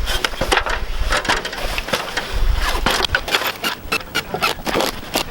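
A rapid, irregular run of knocks and clicks over a low, uneven rumble.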